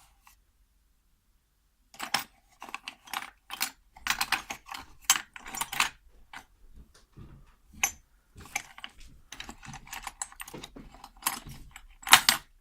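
Quick metallic clicks, taps and rattles of a picked padlock and small tools being handled as the lock is taken apart, starting about two seconds in and loudest near the end.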